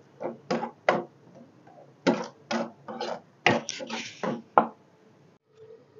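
Metal spoon stirring and scraping thick frying tomato masala against the sides of a metal pot, in quick strokes about two to three a second that stop about five seconds in.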